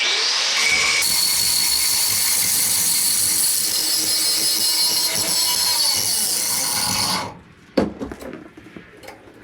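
Angle grinder running against steel rebar for about seven seconds, then cutting off, followed by a couple of short knocks.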